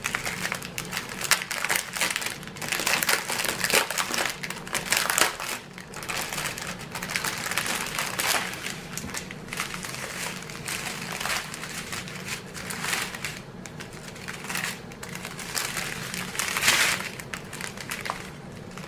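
Small plastic bags of diamond-painting drills being handled and sorted, crinkling continuously and unevenly.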